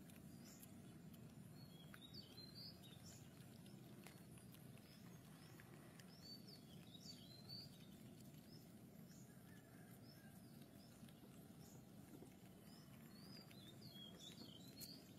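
Near silence: a faint steady background hum with scattered faint, high, short chirps.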